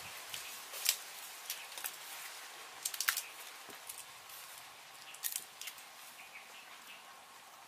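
Small green wild fruit being peeled by hand and bitten into: scattered sharp crackling snaps of the firm rind, with the loudest cluster about three seconds in, and crunchy chewing, over a steady background hiss.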